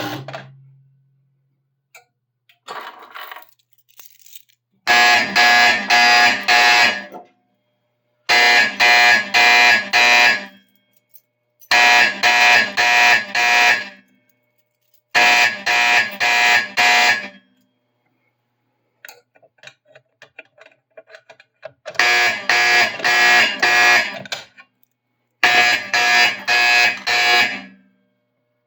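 Fire alarm signal driven by an Autocall SA-3 panel, sounding its coded 4-4-4-4 master code: loud groups of four quick strokes, each group about two seconds long and separated by about a second. After four groups comes a pause of a few seconds with faint clicking, and then the next round of fours begins.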